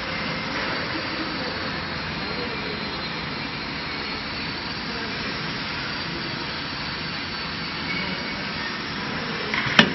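Solder paste syringe filling machine running with a steady whirring hiss, and one sharp click just before the end.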